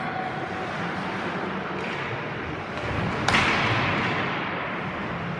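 A single sharp crack of a hockey puck being struck, about three seconds in, echoing through the ice rink over a steady background of arena noise.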